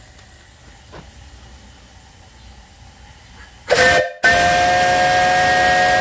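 Three-chime steam whistle on a steam boiler blowing a loud chord of several steady tones. It gives a short blast about three and a half seconds in, breaks off for a moment, then blows steadily until it cuts off at the end.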